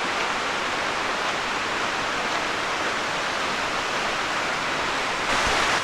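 Steady rushing of water falling down a small waterfall, a little louder near the end.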